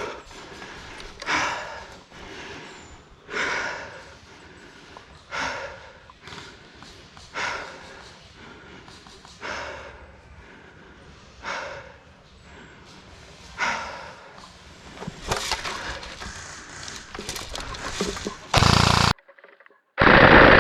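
A soft sound recurs about every two seconds. Near the end come two loud bursts of rapid airsoft gunfire on full auto.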